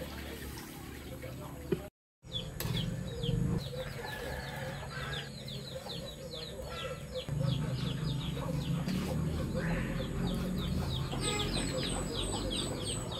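Chickens in the background: many short, high peeps falling in pitch, several a second, like chicks, with some clucking, over a low steady hum. The sound drops out completely for a moment about two seconds in.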